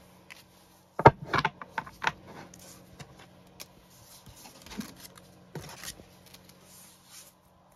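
Tarot cards being handled and set aside on a table: a quick run of sharp taps and rustles about a second in, then a few more taps and rustling around five and six seconds.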